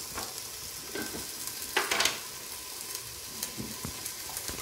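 Onions, tomatoes and spices sizzling steadily as they fry in a stainless steel pot. A wooden spatula stirs them, scraping and knocking against the pot a few times, loudest about two seconds in.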